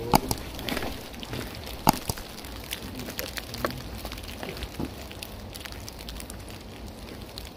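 Footsteps crunching through dry leaf litter: irregular light crackles and rustles, with two louder sharp clicks, one at the very start and one about two seconds in.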